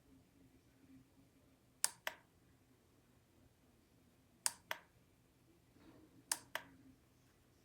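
Electric fireplace crackle sound effect: faint pairs of sharp pops, three times, repeating at an even interval over a low hum.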